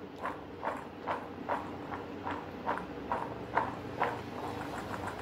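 Boiled chickpeas dusted with cornflour being tossed in a stainless steel bowl: the bowl is shaken in a steady rhythm and the chickpeas thud against the steel about two or three times a second as they are coated with cornflour.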